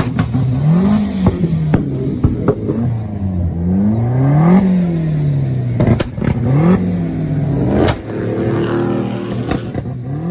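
A car engine being revved hard over and over, its pitch climbing and dropping every second or two, with sharp exhaust pops and bangs between the revs.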